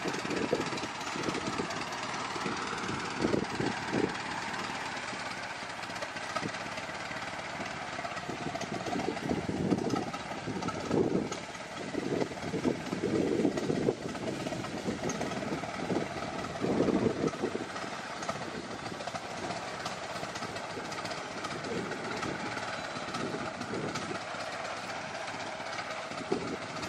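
Wind buffeting the microphone in irregular gusts over a steady outdoor hiss.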